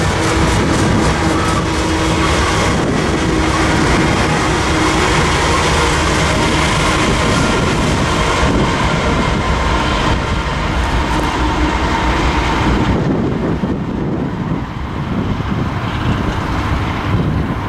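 Double-stack intermodal freight train rolling past, its steel wheels clicking over the rail joints, with the diesel of a BNSF rear locomotive passing at the end of the train. The train sound falls away about thirteen seconds in, leaving wind noise on the microphone.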